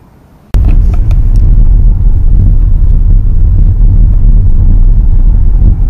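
Car driving along a narrow road, heard from inside the car as a loud, steady low rumble of engine and road. It cuts in suddenly about half a second in, with a few clicks at its start.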